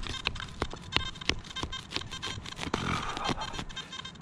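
Hand digger stabbing and scraping into soil: a series of irregular sharp knocks, with a short gritty scrape about three seconds in.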